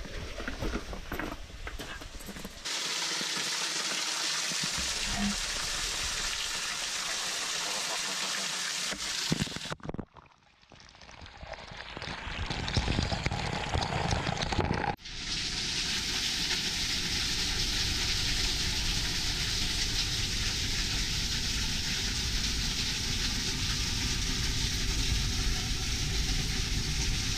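Steady rushing hiss of water running behind the ice of a frozen waterfall. It changes abruptly in level and tone about 3, 10 and 15 seconds in, with a brief drop to near silence around 10 seconds in.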